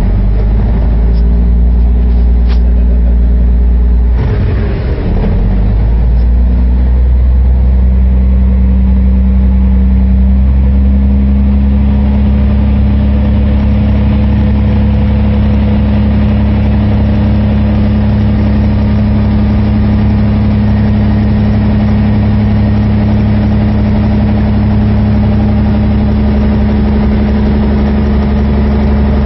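Car ferry's diesel engine running with a loud, steady low drone. The drone changes about four to six seconds in, then holds steady.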